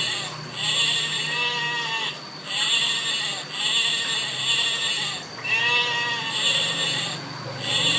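A bleating goat or sheep calling over and over: a series of long, wavering bleats about a second each, one after another.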